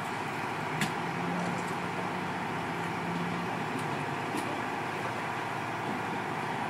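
Steady rumble of idling vehicle engines and street traffic, with a low hum in the first half and one sharp click about a second in.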